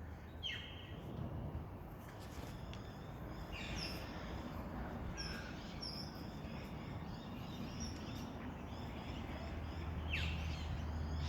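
Birds chirping in short, scattered calls over a steady low rumble that grows louder near the end.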